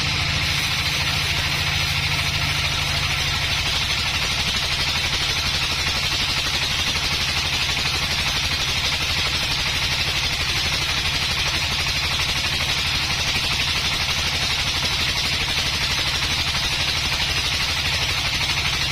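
Sawmill engine running steadily at a constant speed, with an even high hiss over it.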